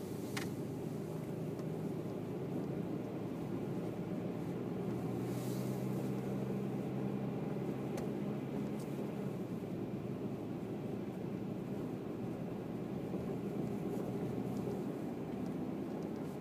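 2008 Toyota Tacoma engine running steadily at idle on a cold start, with a brief click about half a second in. The cold-start noise is one the owner suspects may be piston slap.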